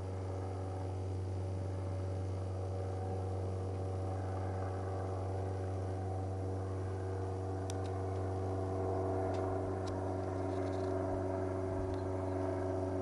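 A Cessna light plane flying over, its engine and propeller making a steady drone that swells a little about two-thirds of the way through.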